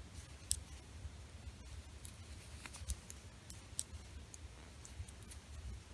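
Metal knitting needles clicking faintly and irregularly against each other as stitches are bound off.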